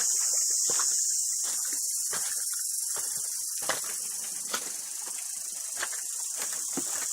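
A steady, high-pitched chorus of insects, with scattered short clicks and crackles beneath it.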